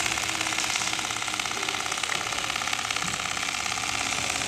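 JOOKE CNC template sewing machine stitching at speed: a fast, even needle rhythm with the machine's running hum as it quilts a diamond grid into a down-jacket sleeve panel.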